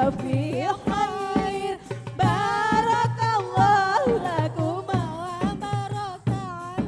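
Islamic wedding nasheed sung live: a singer's ornamented, wavering melody over a steady hand-drum beat, recorded straight from the mixing desk.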